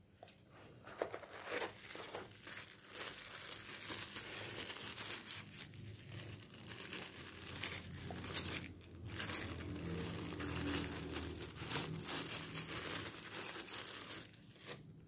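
Thin white paper wrapping crinkling and rustling as it is handled and unfolded by hand, in irregular bursts with a short lull partway through.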